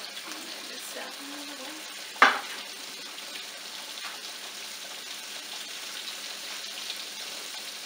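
Cornmeal-breaded catfish fillets frying in a pan of hot oil, a steady sizzle. There is a single sharp tap about two seconds in.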